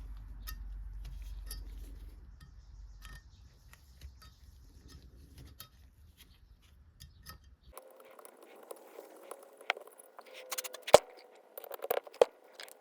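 Scattered light clicks of small hard objects over a low hum, then, after an abrupt change in background, a run of sharp metallic clinks and clanks, the loudest about two thirds of the way in.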